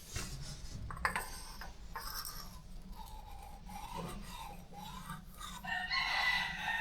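Light metal-on-metal scraping and rubbing, with a few sharp clicks near the start, as a piston is worked up and down inside a freshly bored and honed motorcycle cylinder to check its fit.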